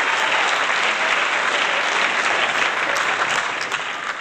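Crowd applauding, a dense patter of many hands clapping that fades away near the end.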